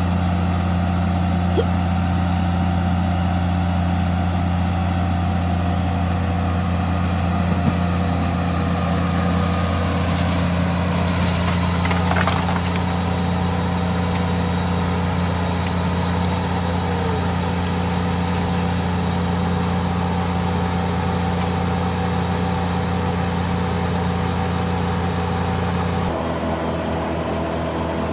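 An engine running steadily at idle, a low even drone; near the end its tone shifts slightly.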